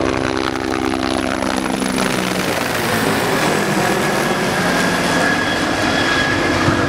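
Turbine helicopters flying overhead. For about the first two seconds there is a steady pulsing rotor hum, which gives way to a broad rush of rotor and engine noise. A steady high turbine whine runs through it from about three seconds in.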